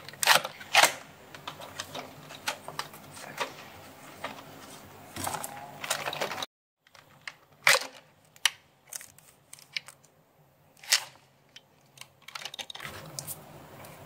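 Scattered sharp plastic clicks and knocks of a Dyson Digital Slim's clear dust bin and cyclone being handled, opened and taken apart. The sound drops out for a moment about halfway, and the clicks are sparser after that.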